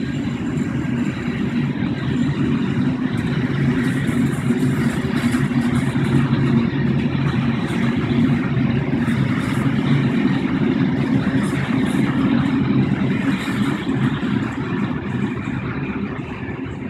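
Freight train of open wagons rolling past: a steady rumble of steel wheels on the rails with scattered light clicks. The sound eases off near the end as the last wagon goes by.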